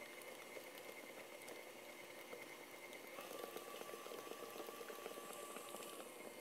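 Stand mixer beating choux paste while beaten eggs are poured in: faint wet slapping and squelching of the dough in the bowl. A faint steady hum steps down in pitch about three seconds in, and the sound gets a little louder from there.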